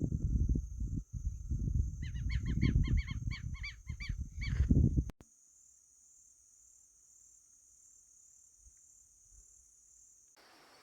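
A bird gives a quick series of about ten nasal, honking notes, roughly four a second, over loud wind rumble on the microphone. After about five seconds the rumble cuts off, leaving only a faint steady high-pitched insect whine.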